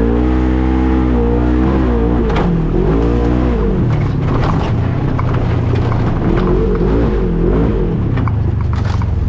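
Off-road vehicle engine under way on a trail, its pitch rising and falling as the throttle is opened and eased off, with a few short knocks.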